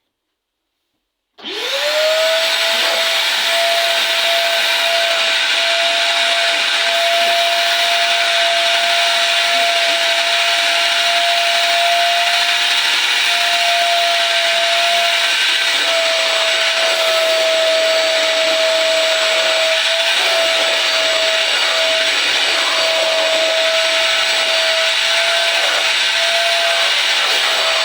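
AiCO 20-litre wet and dry vacuum cleaner switching on about a second and a half in. Its motor spins up quickly, then runs steadily with a constant whine over a loud rush of air.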